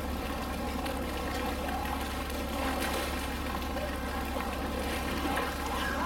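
Steady running, trickling water over a constant low hum.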